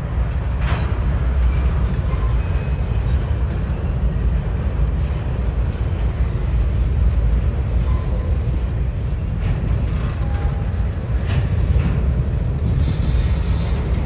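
Covered hopper cars of a freight train rolling past at close range: a steady rumble of wheels on rail with occasional sharp clicks.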